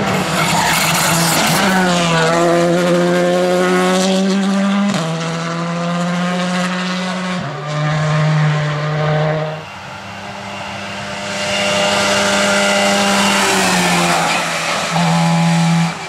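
Rally car engines at full throttle, the note holding and then stepping at each gear change, first from a Škoda Fabia rally car as it passes and pulls away. The engine sound fades about two-thirds of the way in, then swells again.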